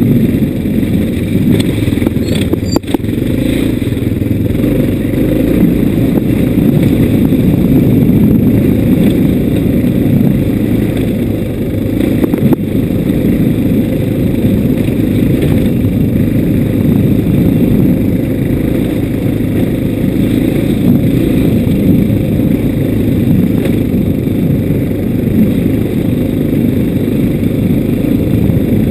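Steady, loud riding noise from a bike on a rutted dirt track: wind rumbling on the microphone together with the machine running and jolting over the ruts. There is a short knock about three seconds in and another about twelve seconds in.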